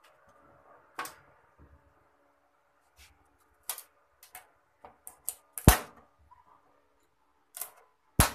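Sharp clicks and snaps of an LED backlight strip and its plastic connector being unplugged and pried off a TV's metal back panel, about a dozen in irregular succession, the loudest about two-thirds through and another at the very end.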